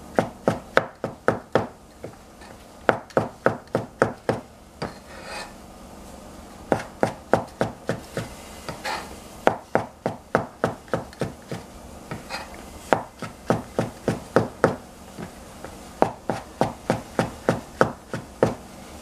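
Chinese cleaver slicing shiitake mushrooms on a plastic cutting board: runs of sharp knocks, about three or four a second, with short pauses between runs.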